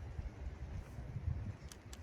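Wind buffeting the microphone at the seashore as a gusty low rumble, over a faint wash of sea waves. Two short clicks near the end.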